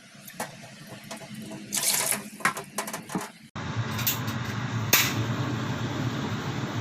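Water splashing into a pot, with a few clinks, for about three seconds; then, after an abrupt cut, a steady low hum with even noise over it.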